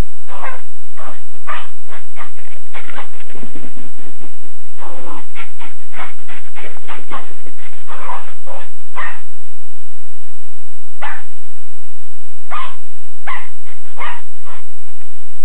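West Highland white terrier puppy barking loudly over and over in quick succession, then, after a pause of about two seconds, a few single barks spaced apart near the end.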